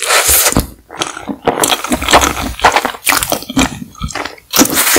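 Close-miked mouth eating saucy instant cup noodles: wet slurping, sucking and chewing in irregular bursts with brief pauses.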